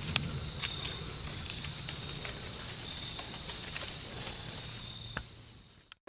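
Steady high-pitched chorus of insects, with a few scattered sharp clicks and knocks; it fades out near the end.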